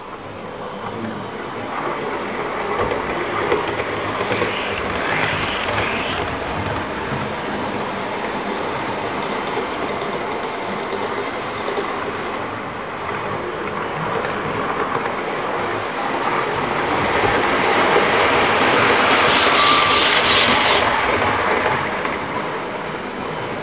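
Model railway trains running on the layout's track: a steady whirr of small motors with wheels clicking over rail joints, growing louder about three quarters of the way through as a train passes close, then easing off.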